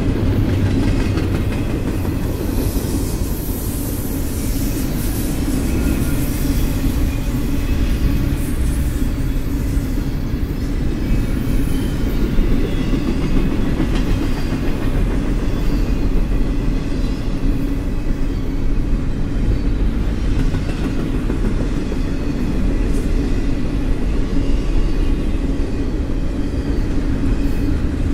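Freight train's double-stack container well cars rolling past on steel rails: a steady low rumble of wheels with clickety-clack over the rail joints and a faint high whine.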